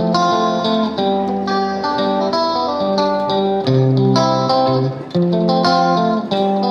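Background music led by plucked guitar, a melody of short, clearly struck notes over a repeating chord pattern.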